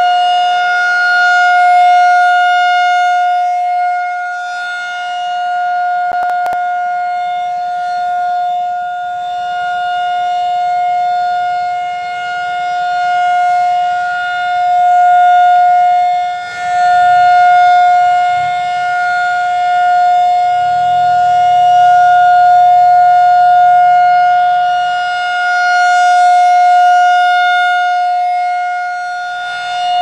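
Federal Signal 2001-SRN electromechanical rotating warning siren sounding its steady full-alert tone. The pitch holds level while the loudness swells and fades as the horn turns toward and away.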